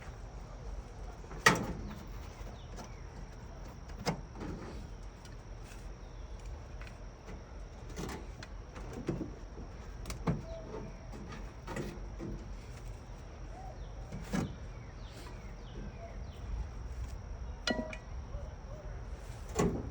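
Aluminum siding being worked loose by hand and tool: scattered, irregular knocks and clicks. The loudest comes about a second and a half in.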